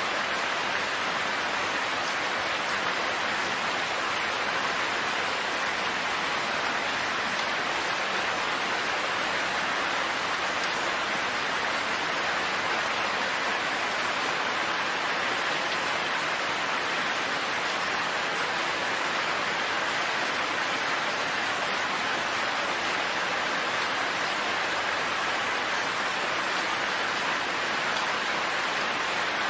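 Steady, even rain falling, a dense hiss of drops with no thunder and no change in intensity.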